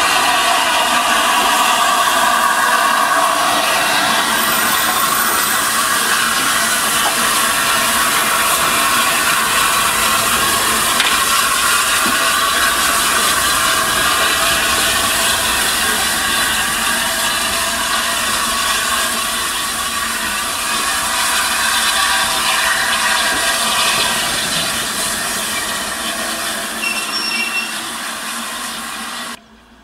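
LNER A3 Pacific steam locomotive 60103 Flying Scotsman and its coaches arriving at a platform: a steady hiss of steam with the noise of wheels and brakes, a wavering squeal in the first few seconds, growing gradually quieter as the train slows. The sound cuts off suddenly near the end.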